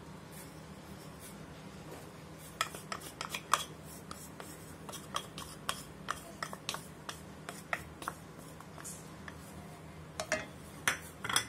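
Wooden spatula knocking and scraping in a nonstick pan as ghee is spread around it, with handling of a ceramic cup: a string of short irregular clicks and scrapes starting a couple of seconds in, over a low steady hum.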